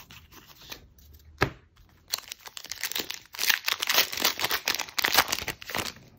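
Foil Pokémon Champion's Path booster pack wrapper being torn open and crinkled by hand: a dense crackling run of rips lasting about four seconds, starting about two seconds in. A single light tap comes just before it.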